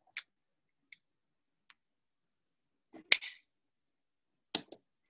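Mostly quiet, broken by a few faint clicks near the start and two short, louder taps, about three and four and a half seconds in.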